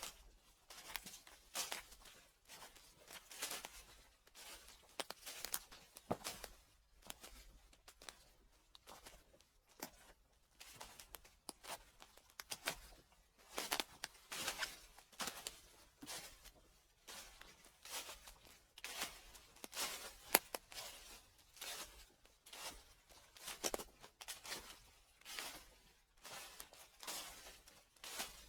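Footsteps crunching through dry fallen leaves at a slow, even walking pace, about one crackling step a second.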